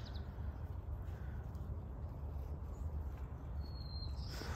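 Outdoor ambience of a chicken run: a steady low background rumble, with a single short, high bird call a little after three and a half seconds in.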